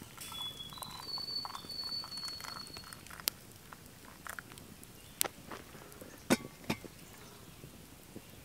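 Hot coffee poured from a pot into an enamel camp mug, a splashing trickle for about three seconds. After it come a few scattered sharp clicks.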